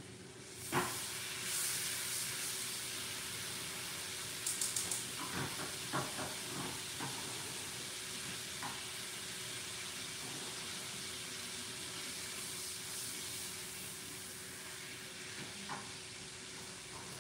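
Butter sizzling in a hot frying pan. The sizzle starts suddenly about a second in and then runs as a steady hiss, with a few light clicks of a utensil against the pan about four to six seconds in.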